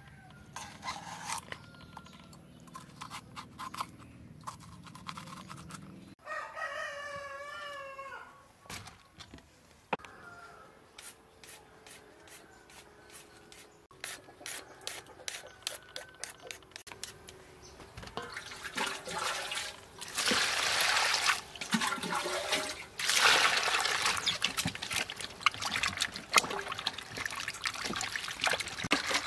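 A cleaver slicing a red bell pepper with light cuts, then a rooster crowing once for about two seconds. After that a hand peeler scrapes a carrot in quick, even strokes, and hands swish and splash vegetables in a metal basin of water, louder, through the last third.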